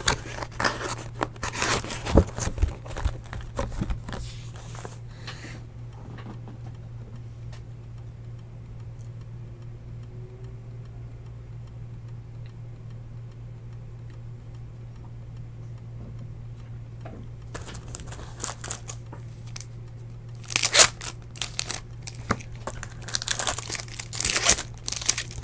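Trading-card packs being handled and torn open: crinkling and rustling of the foil wrappers for the first few seconds and again over the last five seconds, with a quieter stretch in between. A low steady hum runs underneath throughout.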